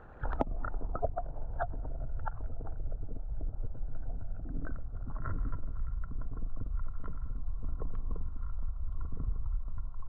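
Muffled rumble of moving creek water with scattered irregular clicks and knocks.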